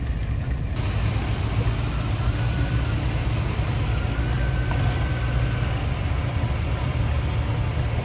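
Steady low rumble of motor vehicles moving slowly, with escort motorcycles running close by.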